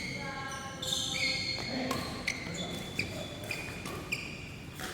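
Badminton rally: rackets striking the shuttlecock in a quick run of sharp hits, with shoes squeaking on the court floor between them.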